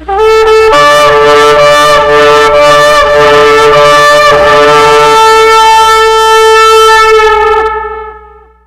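A loud shofar blast. The ram's-horn note dips and breaks several times in its first four seconds, then holds one steady note and fades out near the end.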